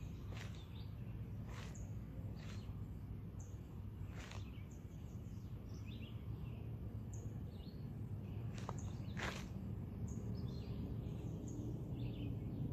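Outdoor ambience: birds chirping in short, scattered calls over a steady low background rumble.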